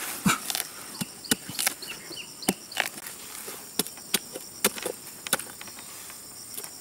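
Machete blade cutting and prying into a halved jackfruit's fibrous flesh, a run of irregular sharp snaps and crunches, over a steady high insect buzz.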